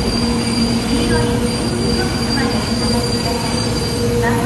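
700 series Rail Star Shinkansen train at the platform: a steady electrical hum with several held, unchanging tones over a constant rush of noise.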